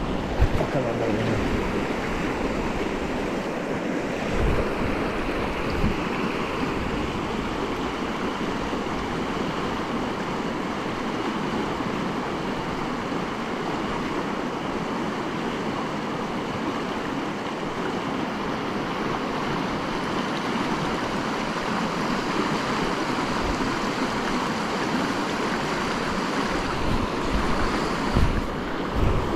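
Steady rush of a shallow, fast river running over rocks, with wind buffeting the microphone. A few brief knocks near the start and again near the end.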